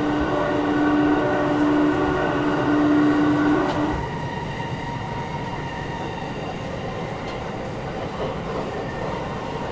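Sendai Subway 1000N series car heard from inside while running: a steady multi-tone hum from the traction motor drive over the rumble of the wheels. The hum cuts off about four seconds in, leaving a quieter steady running noise with the air conditioning.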